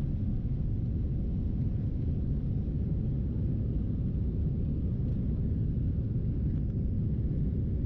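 Steady low rumble inside a jet airliner's passenger cabin during the climb just after takeoff: engine and airflow noise heard through the fuselage.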